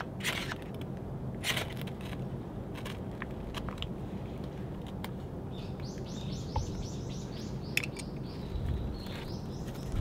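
A knife spine scraped down a ferro rod a few times in the first few seconds, short rasping strikes throwing sparks onto cotton tinder. A bird gives a quick run of high chirps about six seconds in, over a steady low background rumble.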